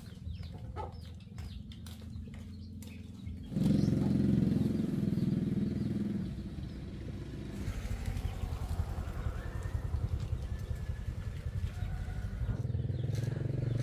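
A small engine running nearby, growing suddenly louder about three and a half seconds in and changing its note a few seconds later. Birds chirp in the first few seconds.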